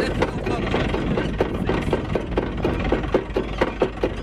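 Deck windlass on a sailing barge being worked: an even mechanical knocking, about three or four knocks a second, over a steady hum.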